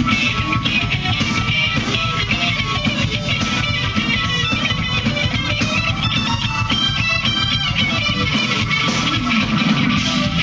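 Live funk band playing: a Telecaster-style electric guitar plays quick lines over a driving drum kit.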